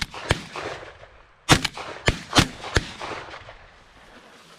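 12-gauge shotgun fire: about six sharp shots in quick succession within three seconds, some fainter than others.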